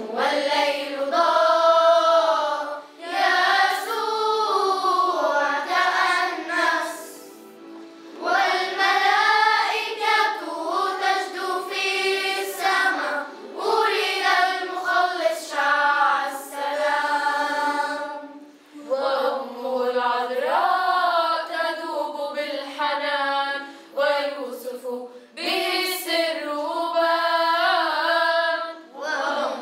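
Children's choir singing together, in sung phrases of a few seconds broken by short pauses for breath.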